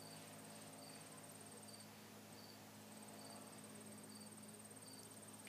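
Faint insects calling: a continuous high trill that breaks off for about a second two seconds in, and a lower short chirp repeating roughly three times every two seconds.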